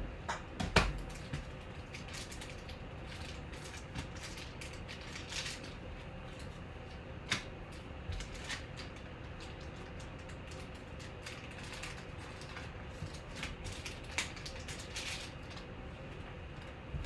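Sporadic light clicks and taps, the sharpest about a second in, over a faint steady hum.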